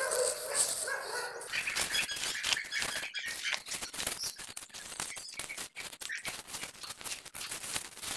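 Footsteps crunching through dry leaf litter on a forest path, with dense irregular crackles from about a second and a half in. Birds chirp now and then.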